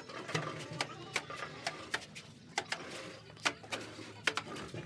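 Irregular sharp taps and clicks of hand plastering work on a cement-plastered concrete tank, about two or three a second, with a soft scraping between them.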